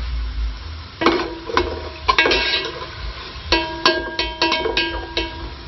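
A metal utensil stirring in a large metal cooking pot, knocking against its side about a dozen times in an uneven run from about a second in, each knock leaving the pot ringing briefly.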